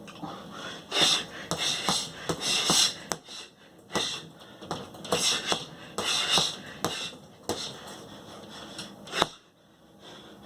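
A boxer throwing punch combinations, breathing out in short sharp hisses with each punch, with sharp smacks as the punches land. The combinations come in quick groups of two or three, and a single loud smack falls about nine seconds in.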